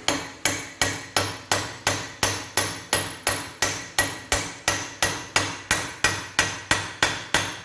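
Steady hammer blows, nearly three a second, each ringing metallically, on a race-driver tool seating a new rear wheel bearing race (cup) into the hub of a 2015 Fiat Palio Weekend.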